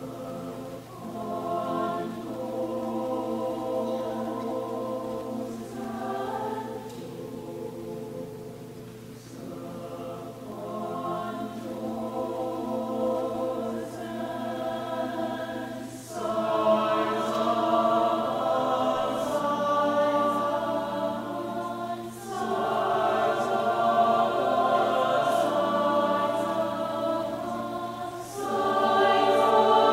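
Mixed choir of men's and women's voices singing sustained chords. It swells louder about halfway through and again near the end.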